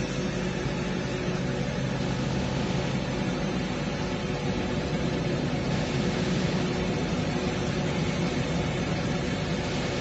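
Farm tractors' diesel engines running steadily, an even hum with no change in speed.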